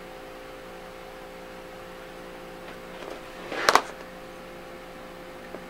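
Steady electrical hum from the room, with faint handling rustle and then two sharp clicks of a small hobby tool being set down on the work table just before four seconds in. A faint tick follows near the end.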